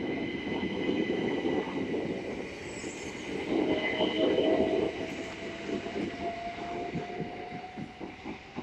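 Southeastern Class 375 Electrostar electric multiple unit pulling away and accelerating: heavy rolling noise of wheels on rail that fades as it leaves, with a steady high whine and a traction-motor tone that slowly rises in pitch. Near the end, rapid rhythmic clicks of wheels over rail joints.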